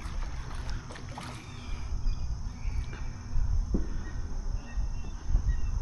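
Wind buffeting the microphone in a low, uneven rumble, with small noises from the canoe and one light knock about two-thirds of the way through.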